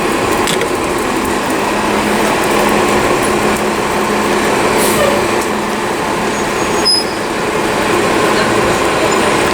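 Steady city street traffic noise, with the engine of a heavy vehicle such as a bus or truck running close by.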